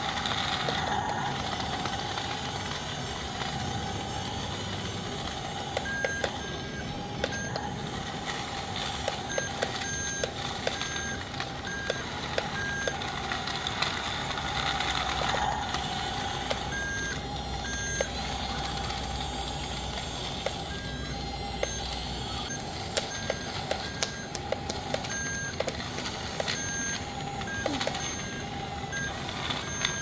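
Remote-control toy bulldozer (Yi Gong BC1046) running with a steady whine and scattered clicks. From about six seconds in, its sound module sounds repeated beeps like a reversing alarm, on and off, as it backs away.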